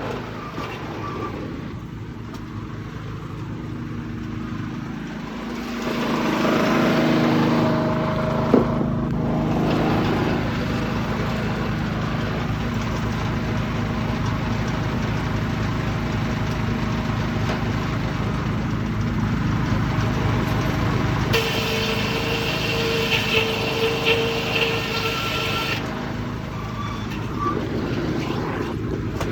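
Sawmill's Detroit 6-71 two-stroke diesel engine running steadily, heard muffled from inside a clothing pocket. A single sharp click comes about eight seconds in, and a higher whine joins for a few seconds about two-thirds of the way through.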